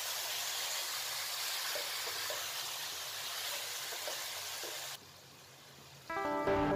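Diced vegetables sizzling in hot oil in a pot as they are stirred with a spatula, a steady hiss. The sizzle cuts off about five seconds in, and background music starts near the end.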